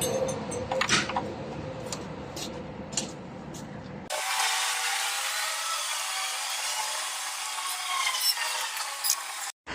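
Hand work on a truck's brake-light fitting: a few sharp mechanical clicks. About four seconds in, the sound changes abruptly to a dense, high-pitched squeaking and creaking of a mechanism.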